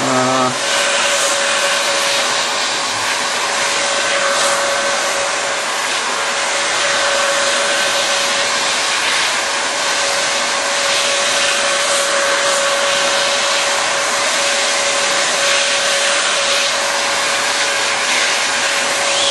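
Heat gun with a narrow nozzle running steadily: a hiss of blown air over a constant motor whine, as it heats and shrinks the adhesive overlap of wrap-around heat-shrink tubing.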